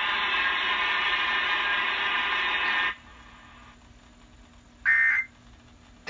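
Emergency Alert System test audio over a radio: a steady, noisy signal cuts off about three seconds in, and a short high burst follows near the end.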